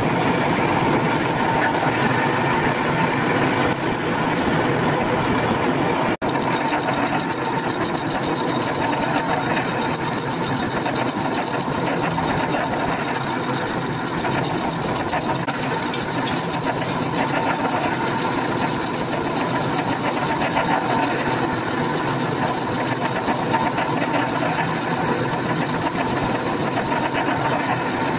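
A small electric motor, such as a power tool, running steadily with a high-pitched whine and a fast, rattly chatter; the sound drops out for an instant about six seconds in, then carries on the same.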